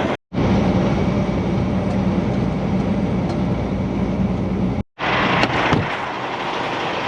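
Semi-truck diesel engine running with steady road noise while driving. The sound is in edited clips that cut off abruptly twice.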